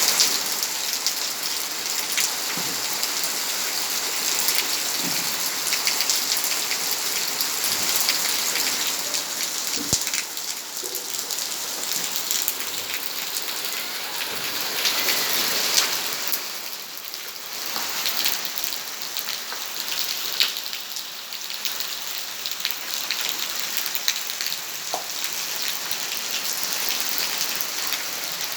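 Rain falling steadily: a dense hiss of drops, with sharper individual drop ticks scattered through it.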